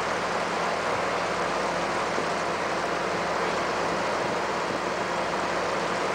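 A house fully involved in flames, burning with a steady rushing noise, over a faint low steady hum.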